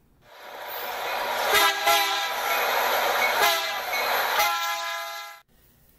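A passing train: a steady rumble with several horn blasts, the last one long, cutting off suddenly about five and a half seconds in.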